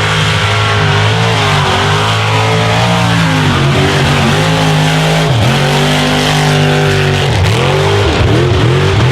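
Mega truck's engine running hard under heavy throttle while mud bogging. Its pitch drops and climbs again several times as the throttle is worked.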